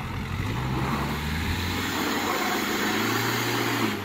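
Duster SUV's engine revving under load as it tries to climb a steep muddy bank, its pitch swelling and dipping, with a rushing noise of spinning tyres in mud that stops abruptly near the end.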